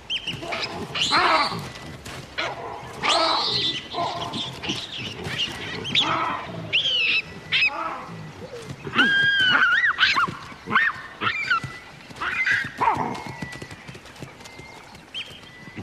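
Baboons screaming and shrieking in a fight: a string of high calls that rise and fall in pitch, loudest about nine seconds in.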